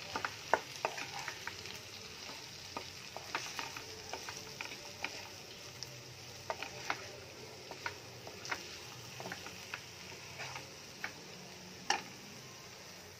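Wooden spatula stirring and scraping chunks of boiled taro root in chilli-powder masala around a non-stick frying pan: irregular knocks and scrapes against the pan over a soft, steady sizzle, with a sharper knock near the end.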